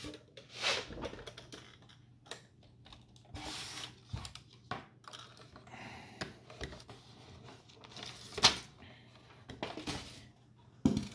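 Scattered clicks, taps and rustles of a polystyrene foam box and its packaging being handled as a diecast model car is lifted out and set down, with one sharper click about eight and a half seconds in.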